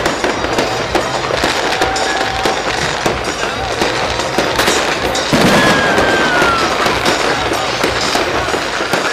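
Fireworks bursting overhead: a dense, continuous crackle of many small pops, with a louder bang about five seconds in.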